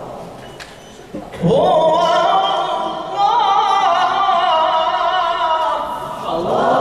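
A man reciting the Quran in melodic, drawn-out tilawat style. After a pause of about a second, he sings one long held phrase with wavering ornaments, and a new phrase begins near the end.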